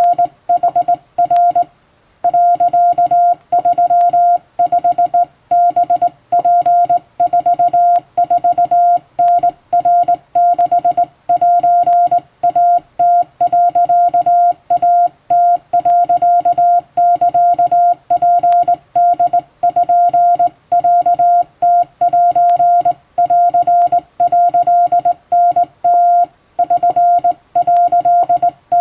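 Hand-sent Japanese wabun Morse code: a steady single-pitch tone keyed on and off in dots and dashes on a telegraph key, with short gaps between characters and a brief pause about two seconds in.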